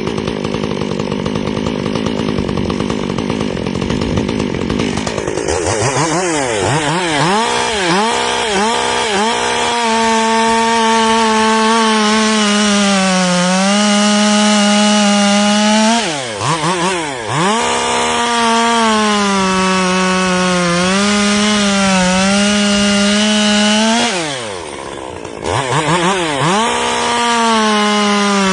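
Ported Stihl MS 201 TC top-handle chainsaw, a small two-stroke, being blipped through quick revs and then held at full throttle while cutting wood. The engine pitch sags under load during the cuts. Between cuts come a few more throttle blips and a brief drop in revs.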